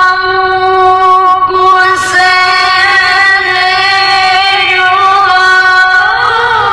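A Quran reciter (qari) drawing out one long, high vowel in melodic mujawwad recitation. The note is held on a nearly steady pitch, with a wavering ornamental turn near the end.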